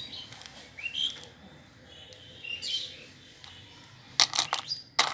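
A bird chirps twice in the background, short rising chirps. Near the end comes a quick run of sharp clicks, then one more: hard plastic toy pieces clicking against each other in the hand.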